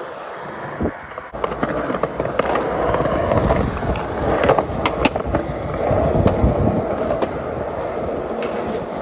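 Skateboard wheels rolling over concrete with a rough rumble that starts about a second in, broken by several sharp clacks of the board hitting the ground and ledge.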